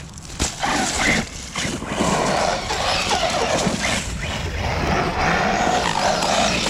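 RC car's brushless electric motor whining at speed with tyre noise, the pitch wavering with the throttle, starting about two seconds in.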